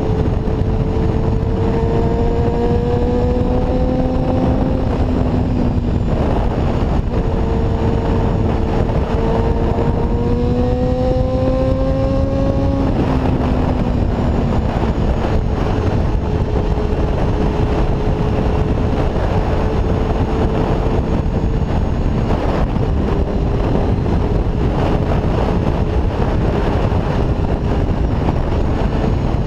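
Inline-four engine of a 1992 Honda CBR250RR with a Musarri aftermarket exhaust, under way. The engine note rises in pitch as it accelerates, dropping about five seconds in and again about thirteen seconds in as it changes up a gear, then holds a steady note while cruising. Heavy wind rush runs underneath.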